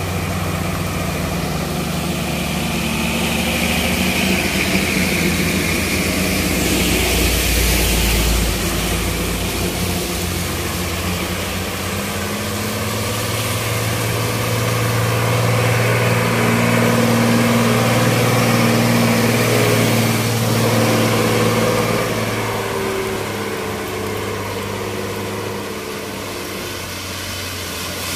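Diesel engines of loaded trucks running slowly uphill on a wet road, a steady drone under the hiss of heavy rain and tyre spray. The engine sound swells loudest about halfway through as a truck draws close.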